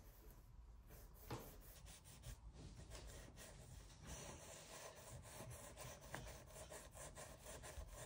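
A cloth rubbing faintly over a refrigerator's door handles and door, in quick repeated wiping strokes, with one light knock about a second in.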